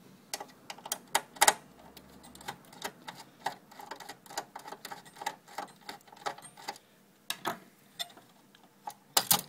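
Screwdriver undoing small screws inside a metal amplifier chassis: irregular small clicks and taps of metal on metal, with a louder double click near the end.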